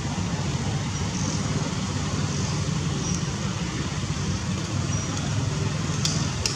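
Steady low outdoor rumble, with a few faint short high chirps and two soft clicks near the end.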